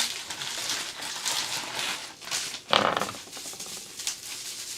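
Packaging crinkling and rustling in irregular bursts as a small parcel is opened, with a louder rustle about three seconds in.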